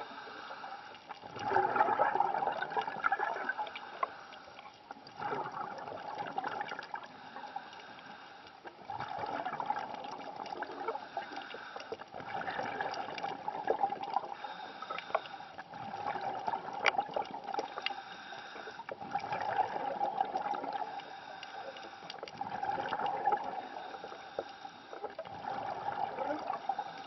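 Underwater sound of a diver's exhaled air bubbling out in a gurgling burst about every three to four seconds, over a steady hiss of water, with a few faint clicks.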